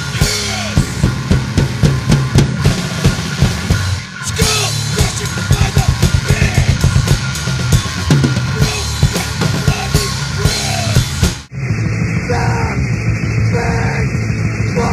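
Fast, loud powerviolence (extreme hardcore punk) recording driven by rapid drum-kit playing with bass drum, snare and cymbals. There is a brief break about four seconds in, and about eleven seconds in it cuts abruptly to another recording with a thinner, band-limited sound.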